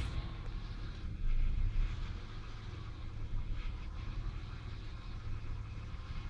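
1996 Ford Falcon EF's 4.0-litre inline six idling unevenly, with a brief rise in level about a second in. The uneven idle is the intermittent idle misfire and stumble the owner is chasing.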